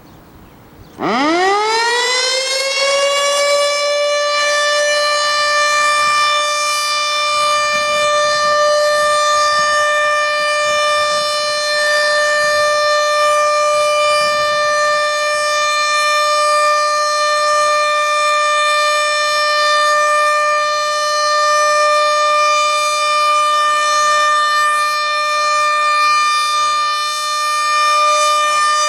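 American Signal ASC OM-120 tornado siren starting up about a second in: its pitch winds up quickly from low and settles into one steady, loud tone. This is the start of its one-minute steady alert signal, sounded for the weekly test.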